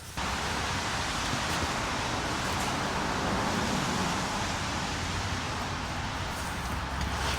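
Steady rushing noise with a low rumble underneath, starting abruptly just after the start and holding level throughout.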